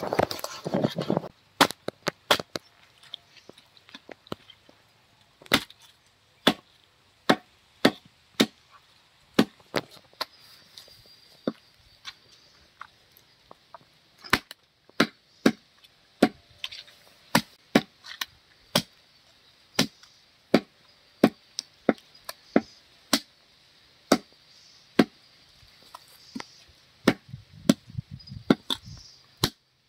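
Heavy meat cleaver chopping a whole country chicken through bone into pieces on a wooden chopping block: sharp single chops in irregular runs, often about one a second, with short pauses between.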